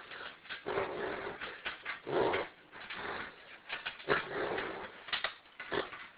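Beagle reverse sneezing: a run of noisy, sharp inhalations through the nose in irregular bursts, the bigger ones about a second apart with smaller ones between.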